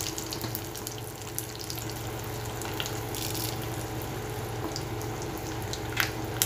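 Hot oil sizzling in a small pan as a tempering of mustard seeds, cumin, urad dal and dried red chillies fries, with scattered pops and crackles, two sharper ones near the end, over a steady low hum.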